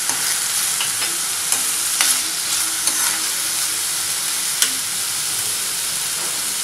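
Chopped onion, capsicum, garlic and tomato sizzling in oil in a wok with a steady hiss, stirred with a few sharp clicks against the pan.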